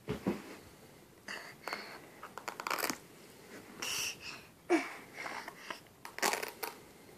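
Irregular rustling, scuffing and crinkling of a plush toy and its small fabric-and-rubber shoes being handled and pulled off.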